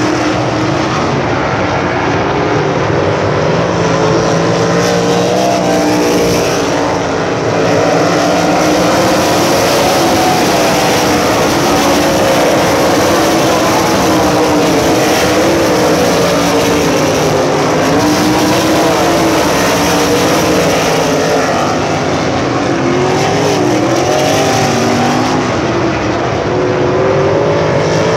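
Several USAC Silver Crown open-wheel race cars running laps on a dirt oval. Their engines overlap and rise and fall in pitch as the cars go around the track.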